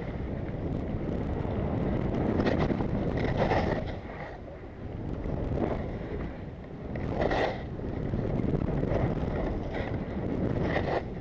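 Wind rushing over a helmet-mounted camera's microphone while skiing downhill. The hiss and scrape of skis on snow swells at each turn, every second or few.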